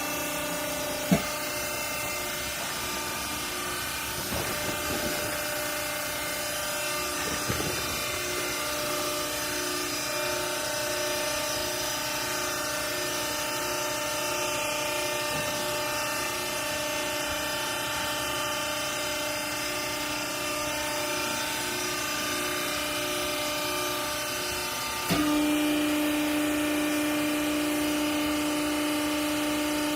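Hydraulic clothes baling press running, its motor and pump giving a steady hum with whining tones, a sharp click about a second in and a few light knocks. About five seconds before the end the pitch drops and the whine becomes suddenly louder and holds steady.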